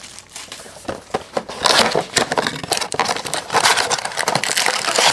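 Plastic wrapping crinkling and crackling, with small clicks of handling, as a trading card box is unwrapped and opened; it grows louder after about a second and a half.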